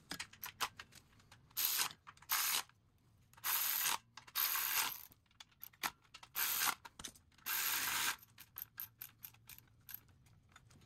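Hand ratchet on a long extension clicking as bolts are run in: bursts of fast, dense ratcheting broken by slower single clicks, with a run of quick clicks near the end.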